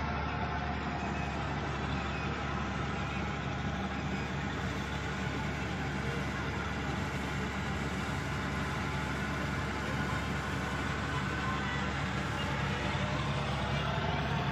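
John Deere 5105 tractor's three-cylinder diesel engine idling steadily, heard from on the tractor.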